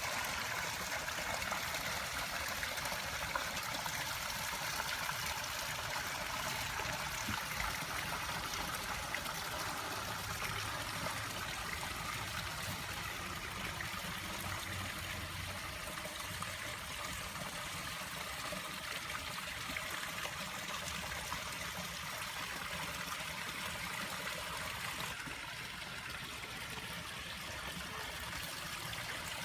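Backyard garden waterfall and stream: water trickling and splashing steadily over rocks into a pond.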